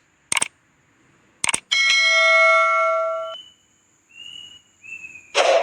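Edited sound effect: two short clicks, then a bell-like ding with many overtones that rings for about a second and a half and is cut off abruptly. Faint high tones follow, and a short noisy burst comes near the end.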